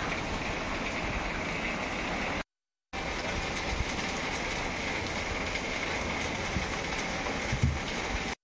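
Steady rushing noise of heavy rain and floodwater, broken by a half-second dropout about two and a half seconds in.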